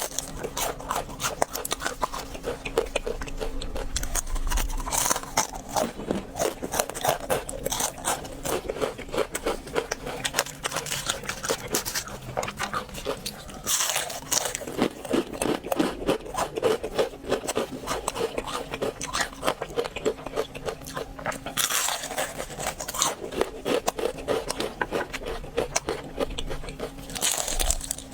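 A person chewing crispy fried food close to the microphone: a dense run of rapid crunching crackles, with a louder bite crunch every several seconds.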